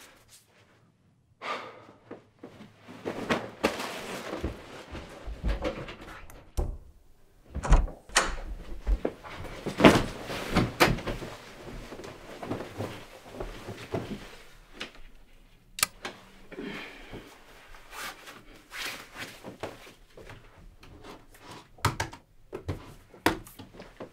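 Someone moving about a small bedroom and handling things: a run of knocks, thuds and rustling, loudest about eight and ten seconds in.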